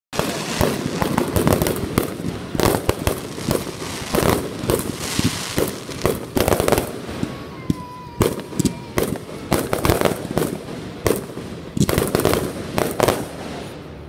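Aerial fireworks going off in rapid succession: many sharp bangs and crackles, several a second, easing off briefly midway and again near the end.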